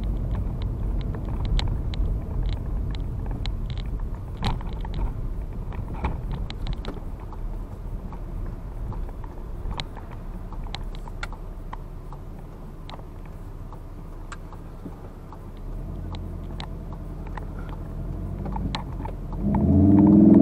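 Car cabin noise while driving: a low tyre and road rumble with many scattered sharp clicks and knocks, easing off towards the middle and building again. About a second before the end a much louder sound with shifting pitches comes in.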